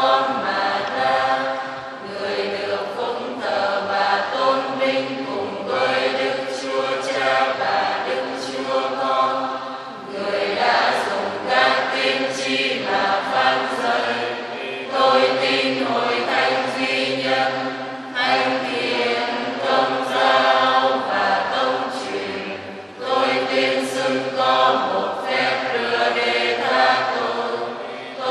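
Church choir singing a sung part of the Mass, several voices together in sustained notes.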